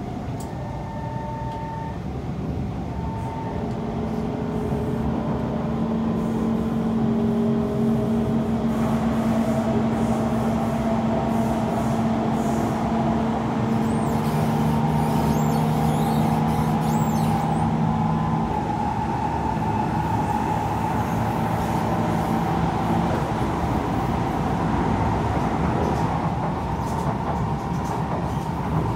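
Kawasaki C151 electric train running on the line, its traction motors giving steady humming tones over the rumble of the wheels. The sound grows louder over the first several seconds, then holds steady.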